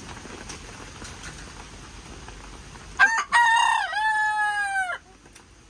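A rooster crows once, about three seconds in: a loud call of about two seconds that holds its pitch and drops off at the end, over the steady hiss of heavy rain.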